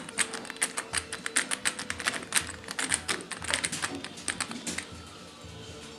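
Quick, irregular clicks and ticks of a Phillips screwdriver driving small screws into the metal motor mounting bracket of a stove fan, thinning out about five seconds in.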